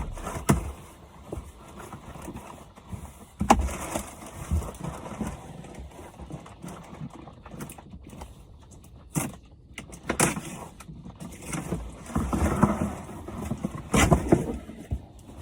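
Gear being handled: scattered sharp knocks and clicks a few seconds apart, with a stretch of rustling near the end.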